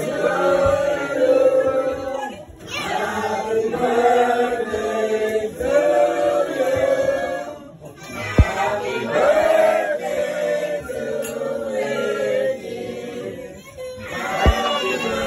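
A group of party guests singing a birthday song together, in sung phrases with short breaks between them. A sharp tap sounds about eight seconds in and again near the end.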